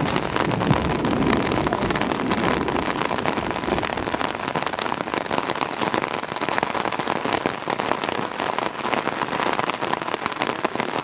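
Steady rain falling, with many small drop ticks in a continuous hiss.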